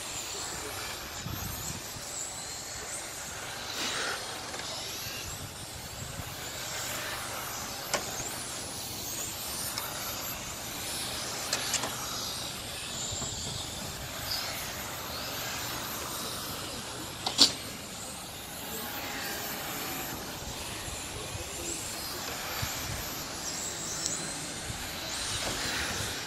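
Several electric 1:10 RC racing cars with 17.5-turn brushless motors running laps on an asphalt track: high motor whines rising and falling as the cars pass, over a steady hiss. A single sharp click about seventeen seconds in.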